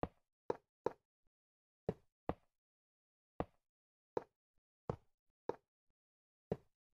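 A series of about ten short, sharp knocks or taps at irregular intervals, with dead silence between them.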